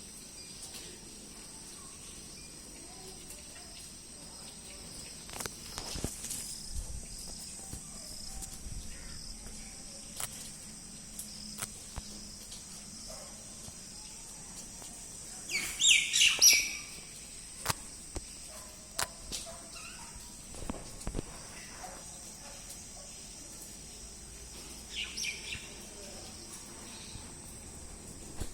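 A bird's chirping calls, loudest in a short cluster about halfway through and once more, fainter, near the end, over a steady thin high-pitched tone and scattered clicks.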